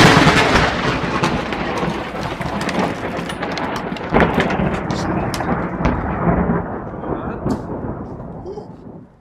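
Thunder from a very close lightning strike rumbling and slowly dying away, with a few sharp cracks along the way and rain.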